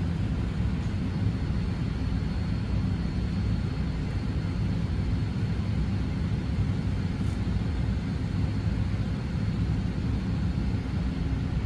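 Steady low rumble of an Airbus A380 airliner heard from inside the passenger cabin, even in level with no build-up, with a faint steady high whine above it.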